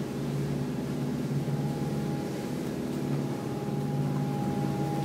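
A Vicem 78 motor yacht's engines running under way, a steady low drone heard from inside the pilothouse, with a thin steady whine above it.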